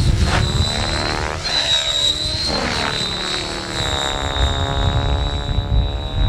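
Miniature Aircraft Furion 6 radio-controlled 3D helicopter flying overhead, its rotors and power plant giving a steady high whine whose pitch rises and falls as it manoeuvres. A low rumble runs underneath.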